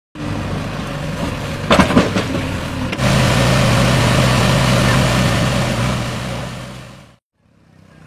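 A JCB 3DX backhoe loader's diesel engine running steadily as the machine drives through shallow water, with splashing noise over the engine hum. A few sharp knocks come just before two seconds in, the sound jumps louder at three seconds, then fades away near the end.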